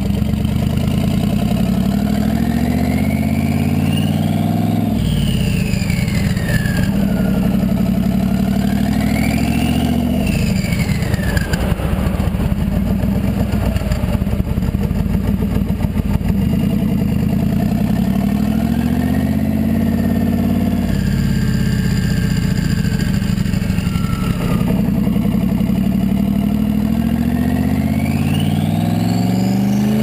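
Exhaust of a 1970 Chevelle's twin-turbo LS V8 under acceleration, the revs climbing and dropping several times. A turbo whistle rises with the revs and falls away as they drop.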